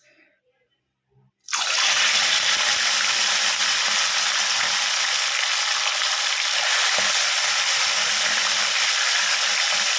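Tilapia frying in hot oil: a loud, steady sizzle that starts suddenly about a second and a half in, as the fish goes into the oil.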